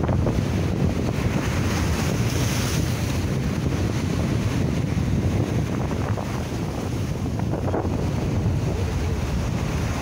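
Sea waves breaking and washing over shoreline rocks in a steady rush, with strong wind buffeting the microphone as a low rumble.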